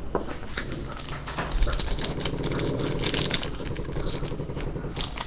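Chrome trading cards being handled and moved into plastic card bags: a run of quick, light clicks and rustles of card stock and plastic.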